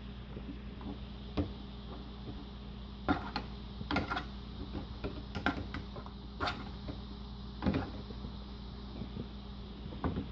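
Mixing utensil scraping and knocking against a bowl in irregular clicks and scrapes while stirring glue, Tide detergent and glitter into slime, over a steady low hum.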